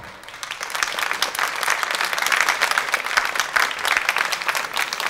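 Studio audience applauding, the clapping building up over the first second and then holding steady.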